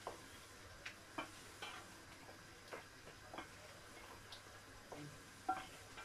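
Utensil stirring a thick chicken filling in a pot, giving faint, irregular clicks and taps against the pot over a low steady hiss from the pan.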